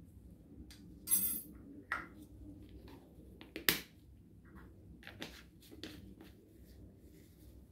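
Clicks and light knocks from a spice jar of ground cinnamon and its cap being handled over a stainless steel bowl, with a short rattle about a second in and the sharpest click about three and a half seconds in.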